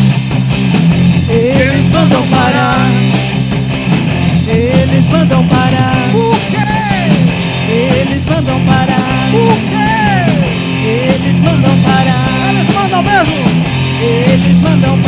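Rock band playing loud, with a lead guitar line of bending, gliding notes over steady bass and drums.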